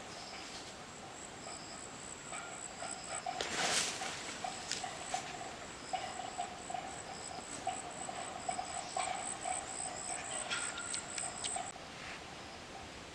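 Insects chirping: a fast, even high-pitched trill that stops near the end, over a lower pulsing chorus, with a brief loud whoosh about a third of the way in and a few scattered clicks.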